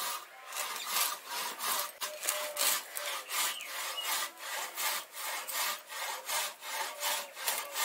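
A saw cutting with steady back-and-forth strokes, about two to three a second: a rasping "khar khar khar" from building work.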